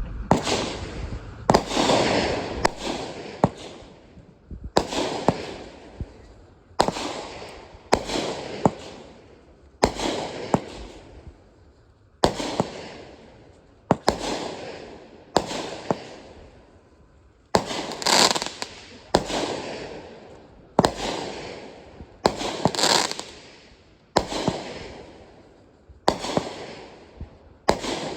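Consumer aerial fireworks going off shot after shot, a sharp bang about once a second, each bang followed by a fading crackle.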